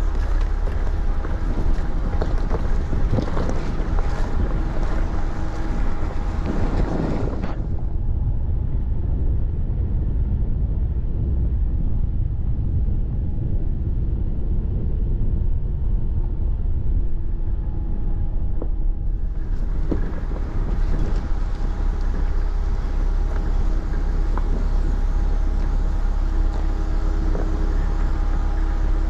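Jeep Cherokee Trailhawk driving over a rough, rocky dirt road: a steady low rumble of engine and tyres, with knocks and rattles from the rocks in the first several seconds. The sound turns duller for a stretch in the middle.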